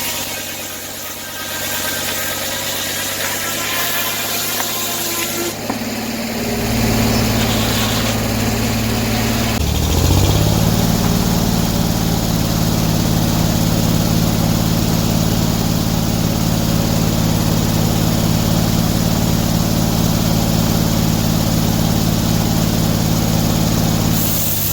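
An engine running steadily, with a change in its note about six seconds in; about ten seconds in it revs up and holds a higher steady speed to the end.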